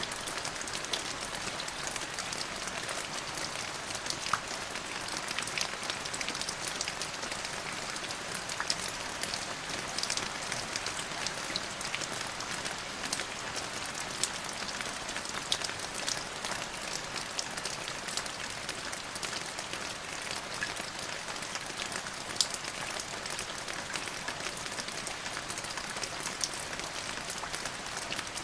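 Steady rain falling, an even hiss with many individual drops ticking sharply on a surface throughout.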